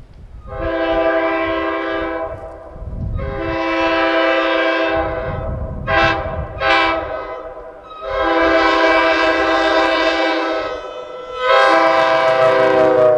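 Locomotive air horn sounding a chord in a run of blasts: two long blasts, two short ones about six seconds in, then two more long blasts, the last still sounding at the end.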